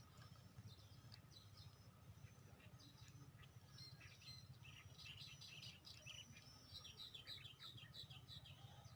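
Faint bird chirping, short high chirps that come thicker in a quick run in the second half, over a low steady hum.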